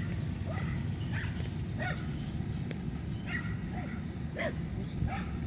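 A dog barking repeatedly, short yapping barks about every half second to second, over a steady low rumble.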